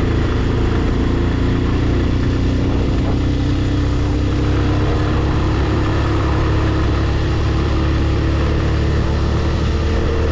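Sport motorcycle engine running as it is ridden at a steady cruise, its pitch rising slowly through the stretch, with wind rushing over the rider-mounted microphone.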